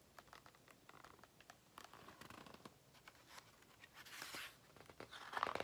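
Faint paper rustling and small clicks from a picture book being handled, with a louder rustle about four seconds in and another near the end as a page is turned.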